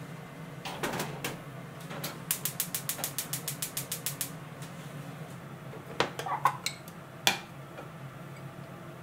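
Gas hob burner being lit: the igniter clicks rapidly, about seven times a second for two seconds, until the flame catches under the pan. A few knocks come before it and a few louder separate clicks and knocks follow later, over a steady low hum.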